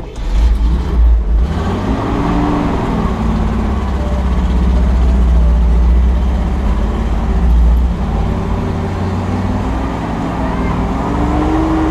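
Dodge pickup truck engine working hard under load while towing a snowmobile, with a heavy low rumble that comes in suddenly at the start and the engine pitch rising and falling twice.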